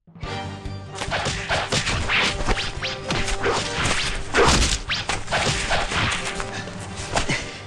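Staged fight sound effects from an audio drama: a rapid run of hits, crashes and whooshes over background music, the heaviest blow about four and a half seconds in.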